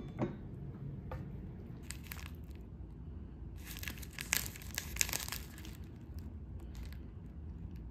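A shiny plastic cookie wrapper crinkling as it is handled, in a short spell about two seconds in and a longer, louder one around the middle. Two light knocks at the very start.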